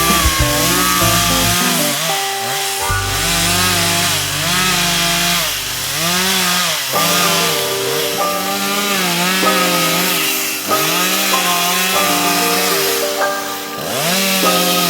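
Chainsaw cutting into a tree trunk; the engine pitch repeatedly sags under load and picks back up as the chain bites. Background music plays over it.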